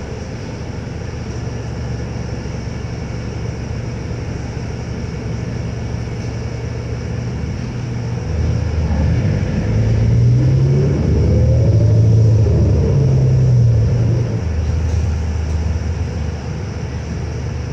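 A New Flyer Xcelsior XD40 diesel city bus engine, heard from inside the cabin. It idles steadily at a stop, then about eight seconds in it revs up as the bus pulls away, rising and dropping in pitch through gear changes, and settles back down near the end.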